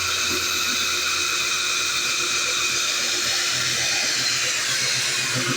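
Electric core drill running steadily as it bores through the concrete roof slab, a continuous motor whine with hiss. Its low hum steps up slightly in pitch about three and a half seconds in.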